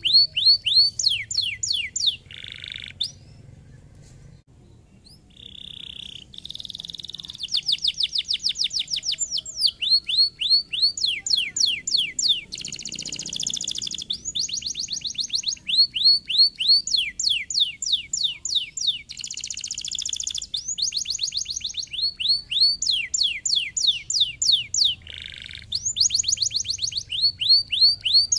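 Domestic canary singing: rapid trills of repeated downward-sweeping high notes, broken by buzzy rolls, with a brief pause a few seconds in.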